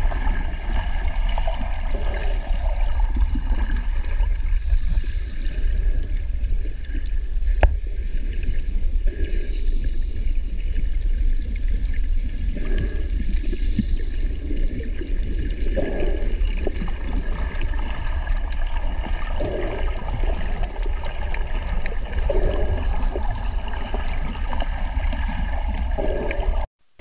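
Underwater ambience from a diving camera: a steady low rumble of moving water with gurgling and a faint steady whine. It cuts off to silence just before the end.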